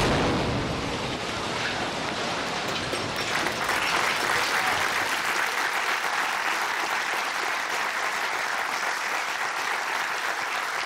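Studio audience applauding, starting suddenly and carrying on at a steady level.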